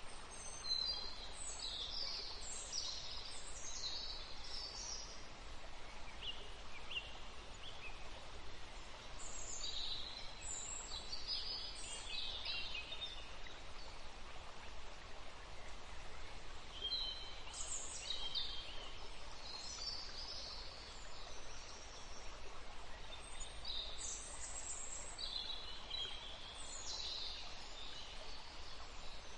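Nature ambience: a steady background hiss with four spells of high-pitched bird calls, each lasting a few seconds, spread through the stretch.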